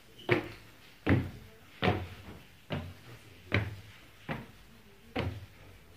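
Footsteps climbing a wooden staircase: seven steady, hollow thuds on the wooden treads, a little more than one a second.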